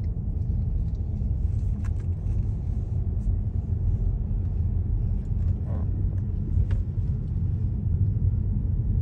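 Steady low rumble of a car on the move, heard from inside the cabin, with a few faint clicks.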